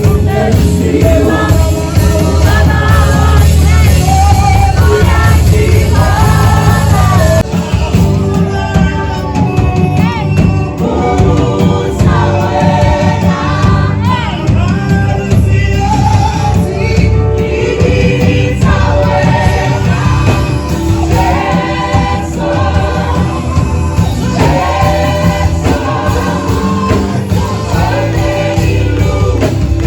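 A song with singing voices over a strong bass, playing without a break.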